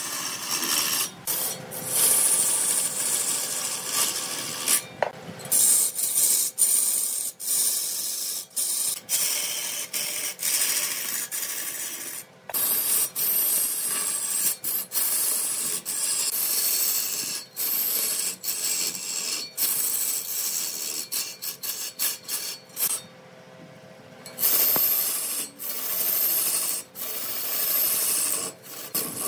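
Wood being cut and scraped by a tool on a lathe: a continuous rasping hiss, broken by many sudden short gaps.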